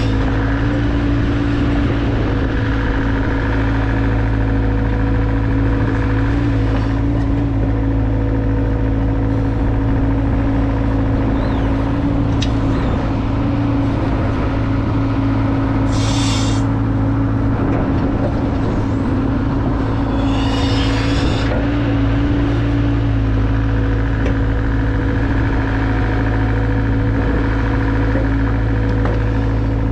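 Mini excavator's diesel engine running steadily under work. Two brief hisses come about sixteen and twenty-one seconds in.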